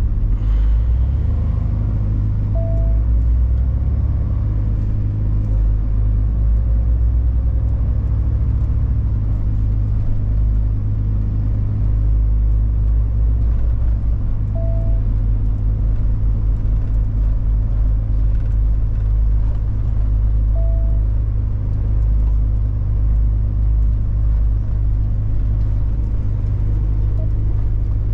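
Heavy truck's diesel engine running steadily as it drives, a low drone heard inside the cab. Three short, identical beeps sound a few seconds in, about halfway through and again some six seconds later.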